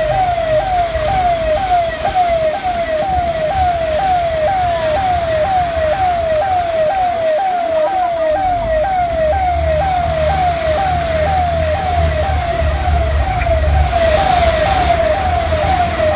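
Electronic siren wailing in short falling sweeps, repeating about twice a second without change, over the low rumble of a vehicle engine that grows heavier about halfway through.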